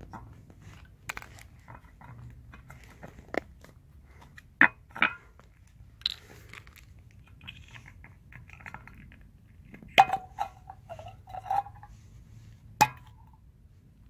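Plastic cap of a Liqui Moly injector-cleaner can being twisted and pried off by hand: a series of sharp plastic clicks and cracks, with a short squeaky stretch about ten seconds in.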